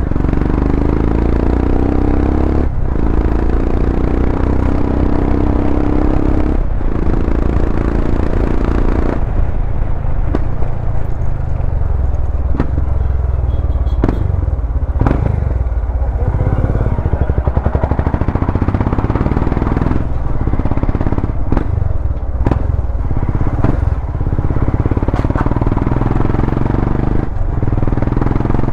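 Royal Enfield Himalayan's single-cylinder engine running through an aftermarket Power Race slip-on exhaust while riding. For the first nine seconds or so it revs up through the gears, its pitch climbing and dropping at each shift about three and seven seconds in; after that it runs at lower revs with many short knocks and clatters.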